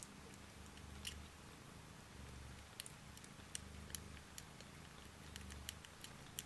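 Russian Blue kitten purring softly, the low purr swelling and fading with each breath about every second and a half. Short, faint clicks are scattered irregularly over it.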